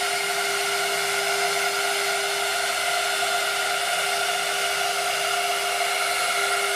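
2001 Quintax QS30-505 CNC router running a program: a steady, unchanging whine with overtones over an even rush of air.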